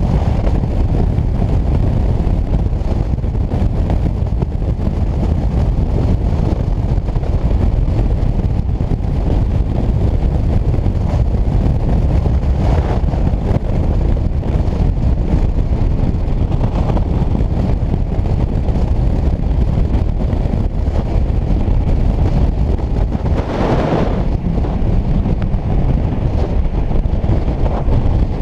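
Steady wind rush on the microphone of a motorcycle riding at highway speed, with engine and road noise underneath. A brief louder swell comes about 24 seconds in, with a smaller one near halfway.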